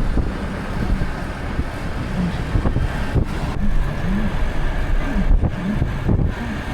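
Road traffic noise: a steady low rumble of vehicles, with faint voices here and there.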